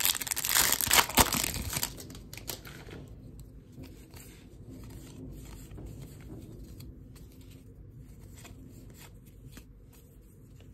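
Plastic wrapper of a baseball trading card pack crinkling and tearing open for about the first two seconds. Then comes a much quieter run of soft clicks as the cards are slid and flipped through one after another.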